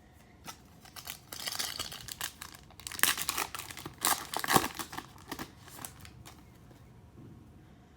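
Foil wrapper of a Donruss Optic football card pack being torn open and crinkled: irregular crackling rustles that stop about six seconds in.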